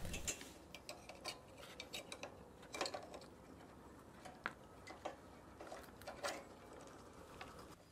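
Faint, irregular light clicks and taps of hands handling a spark plug wire and the metal carburetor linkage of a small engine while routing the wire behind the carburetor.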